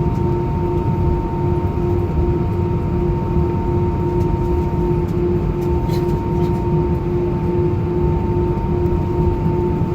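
Cabin noise of an Airbus A319 with its jet engines running at a steady setting: a constant hum holding two steady tones over a low rumble.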